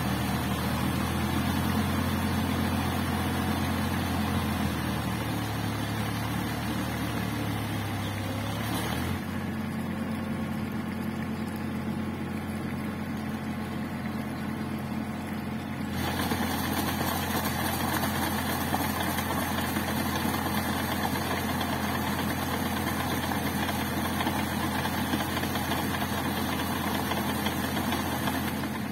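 Tractor diesel engine running steadily under load as it drives a rotary tiller through a flooded field. The tone changes abruptly about nine seconds in and again about sixteen seconds in.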